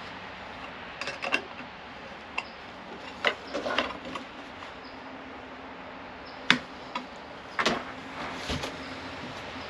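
Irregular metallic clinks and knocks of a wrench and a metal mounting bracket being handled and fitted, one sharper clack a little past the middle, over a faint steady hum.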